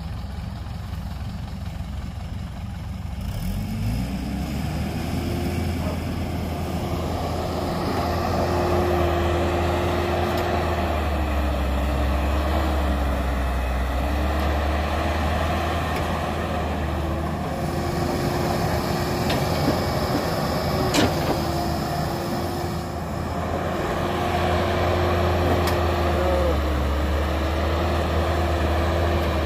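Cat excavator's diesel engine, quieter for the first few seconds, then revving up about three seconds in and running at high revs as the machine digs, its pitch dipping now and then as the hydraulics take load. One sharp knock comes a little past two-thirds of the way through.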